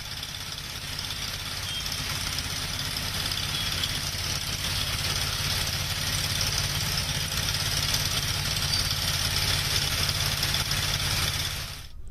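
A large vehicle engine running steadily, with a constant hiss over it; it cuts off near the end.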